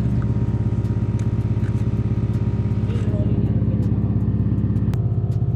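An engine idling steadily with a fast, even pulse, and a single sharp click about five seconds in.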